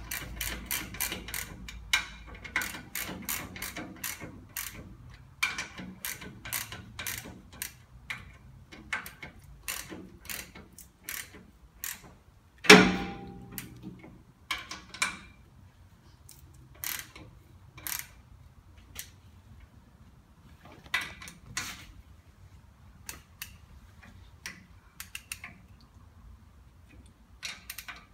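Hand ratchet clicking in quick runs as swivel hub bolts are tightened a little at a time, pulling the new bearing into place; the clicks thin out in the second half. Just under halfway through, a single loud metallic clank rings briefly.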